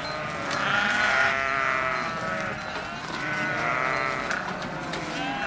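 Several goats bleating, their wavering calls overlapping in two long stretches with a short break between them.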